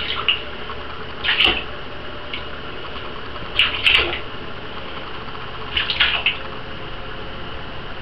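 Rat paddling in shallow bathwater in a bathtub: short light splashes in four brief clusters a second or two apart, over a steady low background hum.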